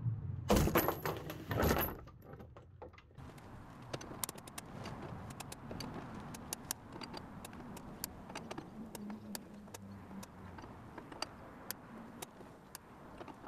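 A loud metallic clatter comes about half a second in. It is followed by a steady low noise with many irregular sharp metallic clicks as the chain-and-gauge rig of a door force test pulls on the door under rising load.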